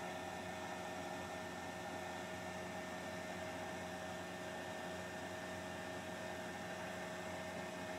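Steady electrical hum with a faint hiss, unchanging throughout: room tone, with no other sound.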